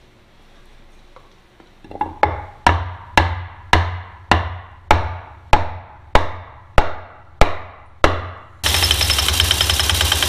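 Hammer blows on a block held against the rear differential's pinion, about a dozen strikes at roughly one and a half a second, seating the new pinion seal and yoke. Near the end an air impact wrench starts and runs with a loud, steady rattle.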